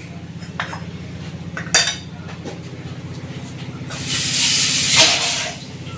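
Two light clinks of a metal fork on a china plate. About four seconds in comes a loud hiss lasting about a second and a half, over a steady low hum.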